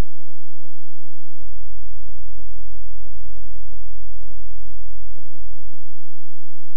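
A steady electrical hum with many irregular low thumps and knocks over it, and a heavy low rumble from about a second and a half in to nearly six seconds.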